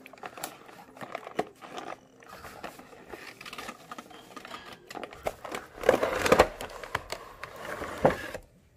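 Plastic toy packaging crinkling and clicking as the figure's box is opened by hand, with a louder burst of crackling about six seconds in and a sharp snap near the end.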